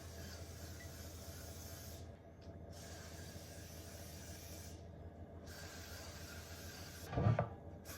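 Aerosol cooking spray hissing onto loaf pans to grease them, in several long sprays of about two seconds each with short pauses between. A short low thump comes near the end.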